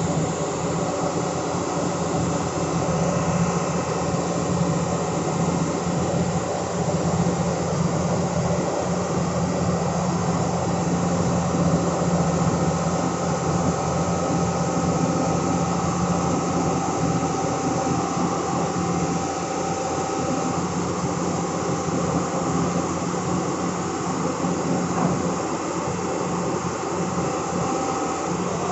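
Heavy diesel engine of an excavator running steadily under load, a constant drone with an even mechanical hum and no sudden knocks.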